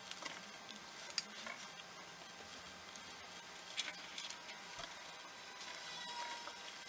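Faint handling noise: a few soft clicks and rubs as fingers and a small tool press tiny polymer clay strawberries into place, over a low steady room hum.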